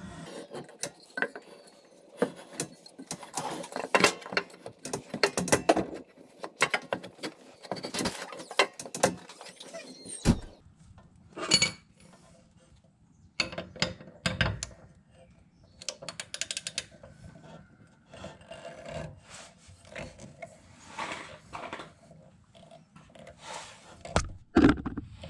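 Irregular knocks, clanks and scrapes of work under a riding mower deck: a wooden block wedged against the steel blade and deck, then a socket wrench set onto the blade bolt. A single heavy knock comes about ten seconds in, and a louder clatter near the end.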